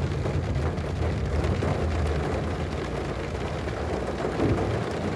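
Heavy rain drumming on a car's roof and windows, heard from inside the car, over a low rumble that eases about two seconds in.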